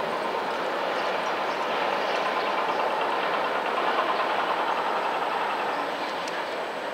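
Freight wagons loaded with tank containers rolling past as the train pulls out of the station: a steady noise of wheels on rails with faint scattered clicks, easing slightly near the end.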